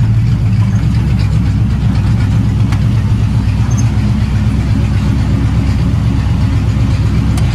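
Engine of an open vintage hot rod running steadily at low speed, a deep even sound, as the car creeps slowly into a shop.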